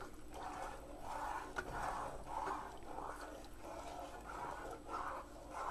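Spoon stirring thick chocolate gravy in a saucepan, a soft scraping swish that repeats in a steady rhythm of about two strokes a second.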